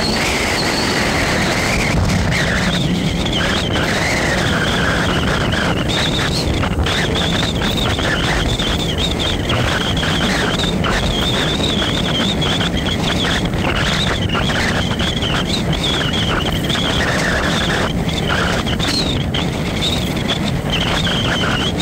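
Steady road and engine noise heard from inside a moving vehicle in traffic, with a high wavering whine over it.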